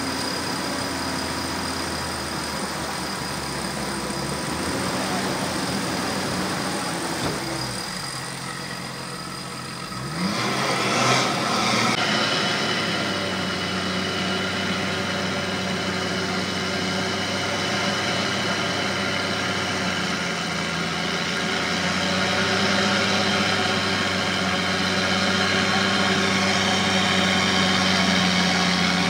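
Off-road 4x4 vehicle engine running, with a rising rev about ten seconds in, then running steadily.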